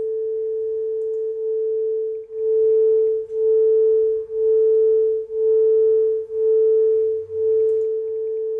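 Two pure sine tones, 440 Hz and 441 Hz, from online tone generators sounding together and beating at one pulse per second. The loudness swells and fades about six times. A single steady tone plays before the second tone joins, about a second in, and again after it stops near the end.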